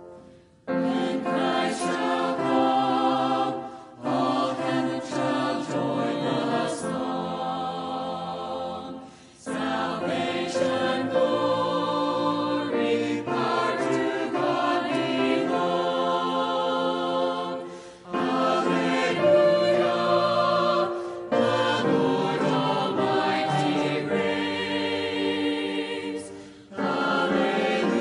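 Choir singing a hymn-like piece in phrases of a few seconds each, separated by short breaks.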